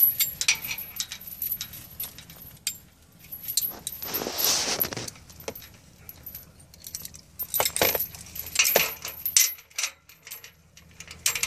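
Steel chain links and a snap hook jingling and clinking as the chain is handled and hooked onto a metal gate frame, in irregular bursts, with a longer rattle about four seconds in.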